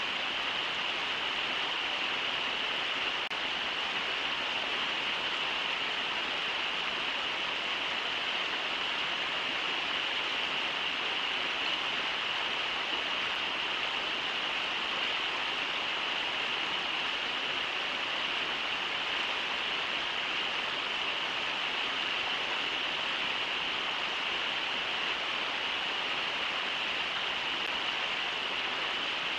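Brooks River rushing over shallow riffles: a steady, even hiss of water with no breaks.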